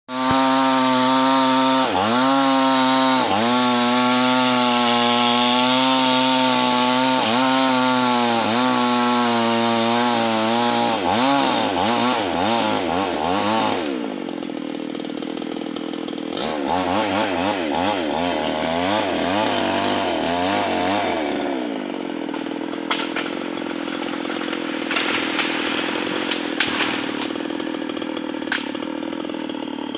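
Stihl 381 two-stroke chainsaw cutting into a teak tree, held at high revs with the engine note dipping briefly under load several times. After about eleven seconds the revs fall and wander, easing off and picking up again, with a quieter stretch in the middle.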